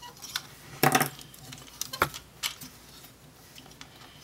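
Hard plastic parts of a Transformers figure and its upgrade kit clicking and clacking as they are handled and pegged together. A louder cluster of clacks comes about a second in, then single clicks around two seconds in.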